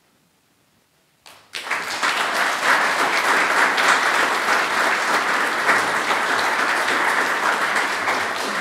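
Audience applauding, starting suddenly about a second in after near silence and holding steady.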